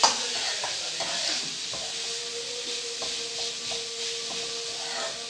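A spoon stirring cooked beans and grated coconut in a small kadai, scraping and knocking against the pan over a light sizzle, with a sharp knock right at the start. A faint steady hum comes in about two seconds in.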